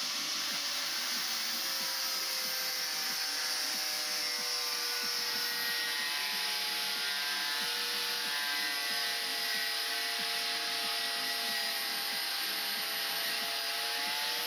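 Angle grinder running steadily against metal, a continuous whine whose pitch sags slightly as the disc bites in under load.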